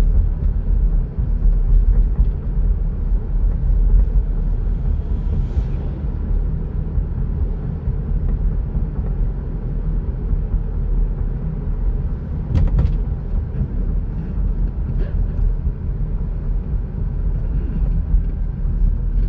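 Steady low road and engine rumble of a car driving, heard from inside the cabin, with a couple of short clicks about two-thirds of the way through.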